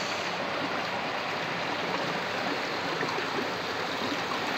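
A stream running steadily over rocks, an even rush of water.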